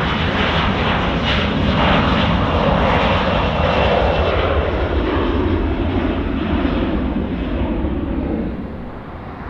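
Airliner engines at takeoff power as a Horizon Air regional airliner departs. The loud, even engine noise is strongest about two to four seconds in and fades toward the end.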